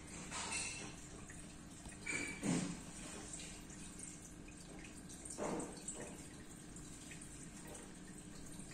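Water dripping and splashing, with a few louder splashes about half a second, two and a half and five and a half seconds in, over a faint steady hum.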